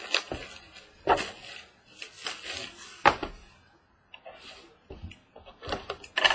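Cardboard baseball card box handled on a wooden table: irregular knocks and taps as it is picked up, turned and set down, with rustling of its wrapping. The loudest knock comes about three seconds in.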